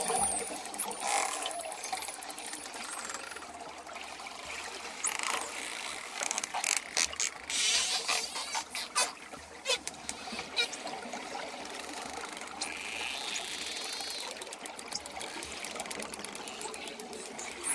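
Dolphins whistling and clicking: a few short rising-and-falling whistles, and runs of rapid clicks partway through, over a steady wash of water noise.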